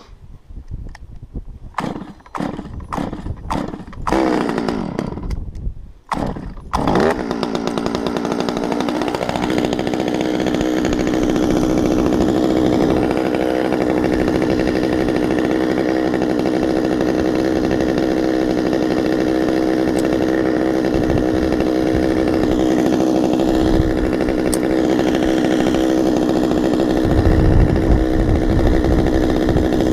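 An old Stihl 200T top-handle two-stroke chainsaw pull-started: a few short pulls, then it catches about four seconds in and revs down, nearly stalls around six seconds, picks up again and settles into a steady idle.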